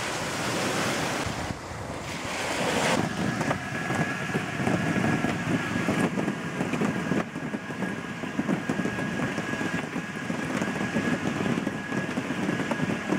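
Sea surf on a pebble beach with wind buffeting the microphone. A hiss of water is loudest in the first three seconds, then gusty rumbling continues with a faint steady high whine from about three seconds in.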